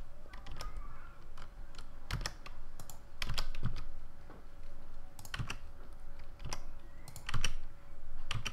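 Keystrokes on a computer keyboard: irregular single key taps, some in quick little clusters.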